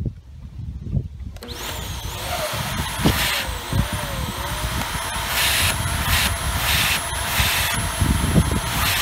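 Hoover WindTunnel Air Pro upright vacuum's motor switched on about a second and a half in, spinning up and running with a steady whine, with several surges of rushing air. The hose is plugged, so there is little suction.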